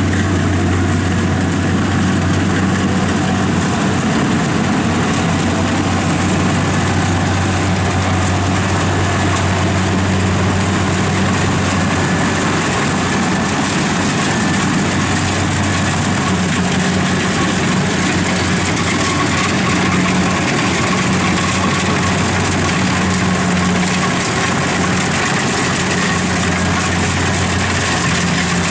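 Kubota combine harvester's engine running steadily with a constant low hum and mechanical clatter.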